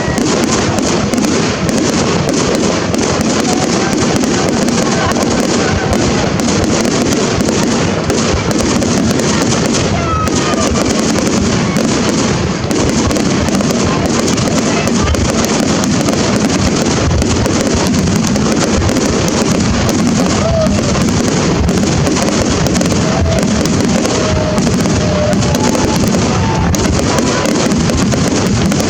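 A continuous fireworks barrage: dense, rapid crackling and bangs overlapping without a break, with a few faint whistles.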